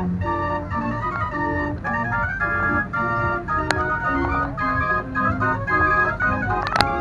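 Organ music playing: a melody of held notes stepping in pitch over sustained lower chords, with a sharp click about halfway through and another near the end.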